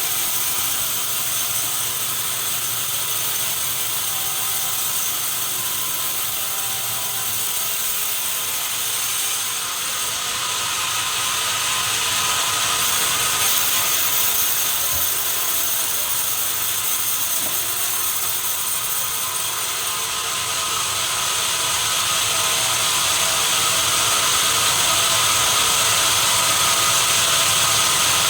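Sawmill saw running through timber: a steady, dense mechanical noise with a high whine. It grows a little louder about halfway through and again near the end.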